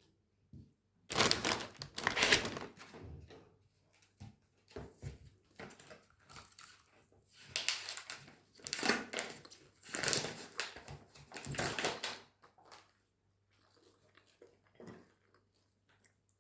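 Close crinkling and tearing in irregular bursts as a crusty pretzel is handled and pulled apart, with the loudest bursts about a second in and again in the middle.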